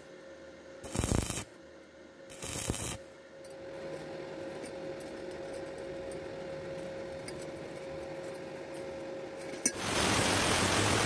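Two short bursts of stick-welding arc crackle on thin steel pipe in the first three seconds. About ten seconds in, an angle grinder's disc starts grinding the steel pipe at the weld with a loud, steady hiss.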